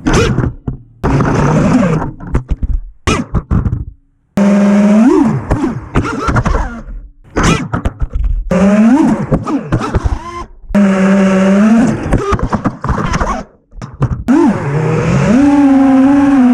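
FPV freestyle quadcopter's Emax Eco II brushless motors and propellers, heard through the onboard action camera, whining loudly with the pitch sweeping up and down as the throttle is pushed and eased. The sound cuts out abruptly about four seconds in, again near halfway, and once more toward the end.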